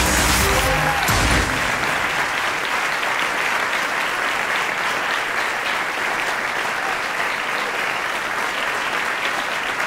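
Large audience applauding steadily. The tail of a piece of music ends about a second and a half in.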